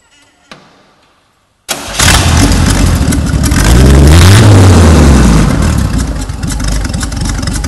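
The 1940 Dodge rat rod truck's inline engine starts suddenly a little under two seconds in, revs up and back down, then settles into a steady idle.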